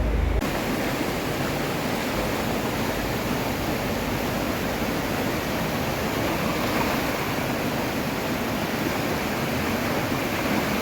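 Rushing floodwater: a steady, even hiss of fast-flowing water with no surges or breaks. A heavy low rumble of wind on the microphone cuts off about half a second in.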